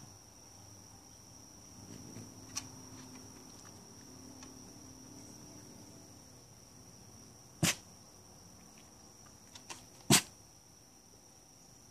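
Small shaggy white dog giving two short, sharp barks, about two and a half seconds apart, over a steady high insect-like tone.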